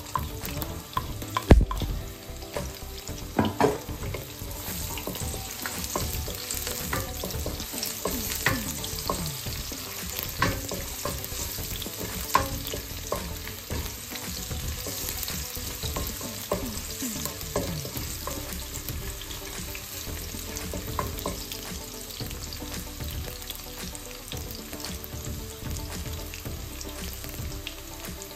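Garlic and onion sizzling in hot oil in a nonstick wok, with a wooden spatula scraping and knocking against the pan as they are stirred. A sharp knock about one and a half seconds in is the loudest sound.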